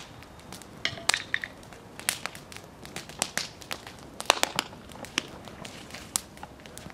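A wood fire in an open fire bowl crackling, with irregular sharp pops and snaps, mixed with crunching steps on dry leaf litter. A short bright ringing sound comes about a second in.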